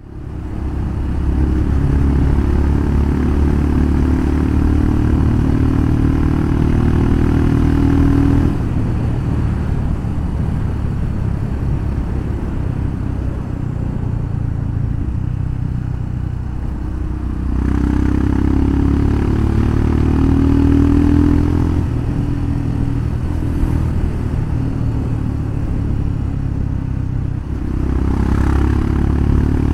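Royal Enfield Himalayan Scram 411's single-cylinder engine running through an aftermarket full-system exhaust, its exhaust note shifting between louder and quieter stretches every several seconds.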